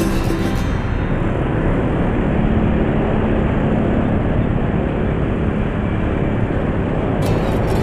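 Motorcycle engine running with road and traffic noise as it rolls slowly through congested traffic, picked up by a camera on the bike. Background music fades out just under a second in and comes back just before the end.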